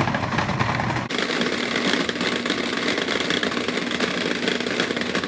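Breville Sous Chef food processor running with its peeler disc, a golden beet tumbling and scraping against the spinning disc as it is peeled. The sound is loud and steady, with a slight change in tone about a second in.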